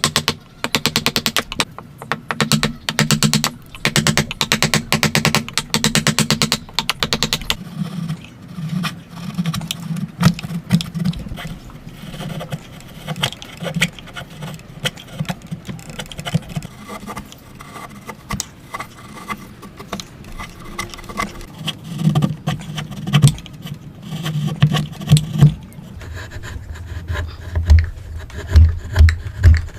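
Hand tools working wood. A fast run of rasping strokes is followed by slower, irregular scraping and cutting strokes, and near the end a series of dull knocks comes about two a second.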